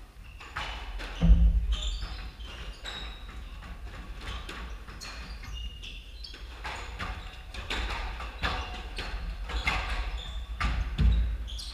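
Squash ball being struck by rackets and smacking off the court walls, with sneakers squeaking on the hardwood floor. Two heavy low thuds stand out, about a second in and near the end.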